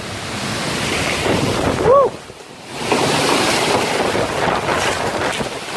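Hurricane wind gusting hard and buffeting the microphone, easing briefly a little after two seconds, then surging again. A person calls out "Woo!" about two seconds in.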